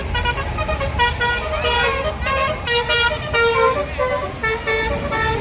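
Basuri telolet horn on a tour bus playing a quick tune of short notes that step up and down in pitch, over the low rumble of the bus and road traffic.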